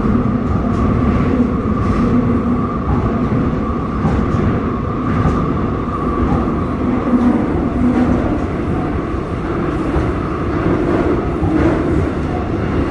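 Seoul Subway Line 5 electric train running, heard from inside the passenger car: a steady rumble of wheels on rail with a steady hum over it.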